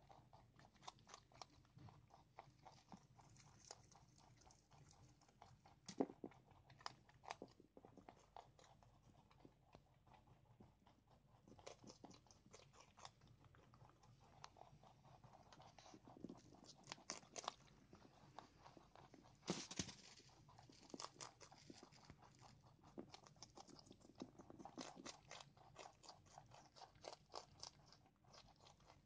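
Two rabbits chewing and crunching leafy greens such as spinach close to the microphone: faint, rapid runs of small crisp crunches, with a few louder bites about six seconds in and near the twenty-second mark.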